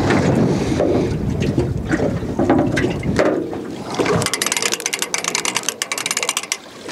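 Low wind rumble with a few knocks, then from about four seconds in a rapid, even run of ratchet clicks lasting about two seconds as the longline is wound in on a hand reel.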